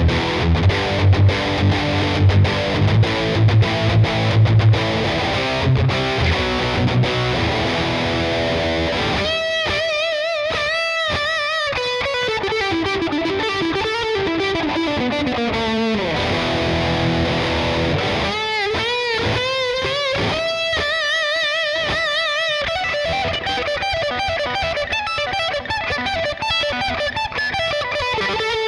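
Yamaha Pacifica 112V electric guitar on its bridge humbucker with a distorted tone, playing a rock part: chugging low riffs for the first several seconds, then sustained lead notes with wide vibrato, bends and slides down the neck.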